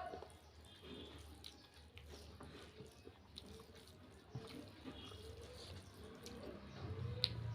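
Quiet wet eating sounds: soupy rice and curry gravy being mixed and eaten, with small drips and clicks.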